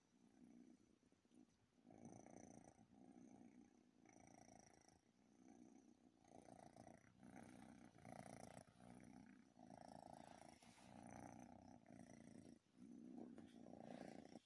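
Calico cat purring softly and steadily, the purr swelling and fading with each breath every second or so.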